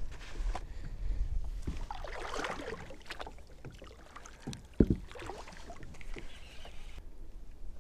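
Water splashing and small knocks around a kayak, with one sharp knock about five seconds in. A low rumble of wind on the microphone comes in the first second or so.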